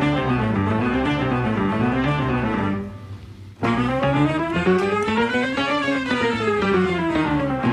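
Instrumental background music with a melody moving in steps, which dips briefly a little under three seconds in and then returns with a rising and falling run of notes.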